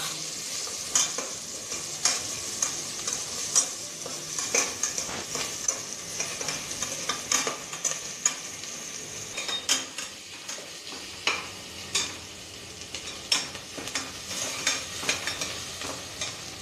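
Chopped onions sizzling as they sauté in hot ghee in a steel pressure cooker. A metal slotted spoon scrapes and clinks against the pot again and again as they are stirred.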